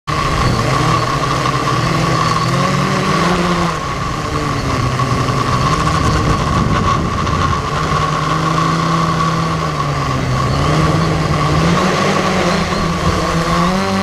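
Quadcopter drone's electric motors and propellers, recorded from the drone itself, making a steady high whine. A lower motor pitch rises and falls every few seconds as the motors speed up and slow down against gusts, with wind buffeting the microphone.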